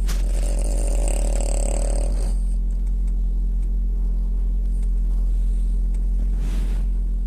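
French bulldog snoring in her sleep: one long raspy snore over the first two seconds or so, then a fainter breath near the end, over a steady low hum.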